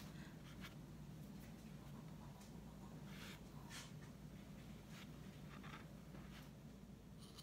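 Near silence with a few faint, short scratchy rustles of felt being handled and fitted over a gourd, over a low steady hum.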